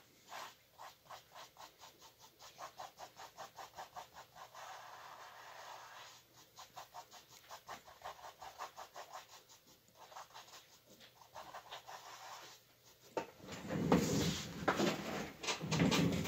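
Paintbrush dabbing and scrubbing thick paint onto a stretched canvas: quick short strokes, about four or five a second, with one longer continuous scrub about four to six seconds in. A louder, deeper noise comes in over the last three seconds.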